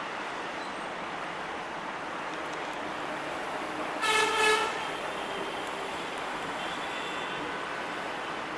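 A locomotive horn sounds one short blast, under a second long, about halfway through. It plays over the steady rumble of an approaching EMD GT18LA-2 diesel-electric locomotive and its train.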